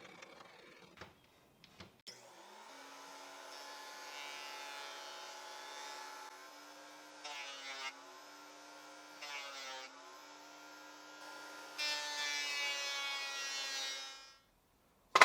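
Portable thickness planer motor starting up about two seconds in and running with a steady whine. Twice the pitch dips briefly as the board is fed through and cut, and it grows louder near the end before shutting off.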